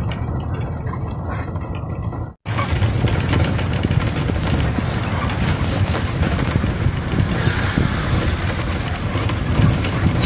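Steady engine and road rumble of a moving vehicle, heard from on board while it drives along. About two and a half seconds in the sound cuts out for an instant and then resumes.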